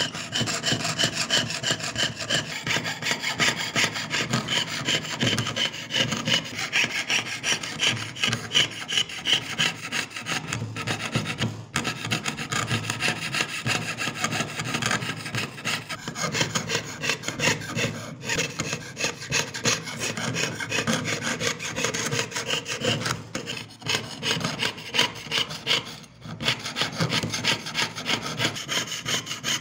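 Jeweler's saw cutting through thin metal sheet in rapid, even back-and-forth strokes, with a few brief pauses, piercing out the background of an engraved design.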